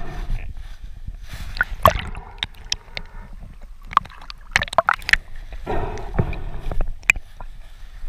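Water splashing and gurgling around a camera at the waterline, with scattered sharp clicks and knocks.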